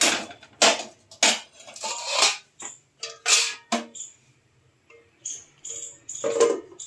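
A steel ladle clinking and scraping against a steel kadai of simmering goat intestines, a run of sharp knocks over the first few seconds. About six seconds in, a metal lid is set down on the kadai with one louder clank.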